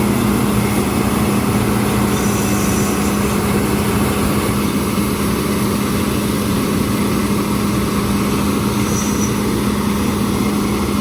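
Combine harvester running steadily in corn, a constant engine drone with a steady low hum.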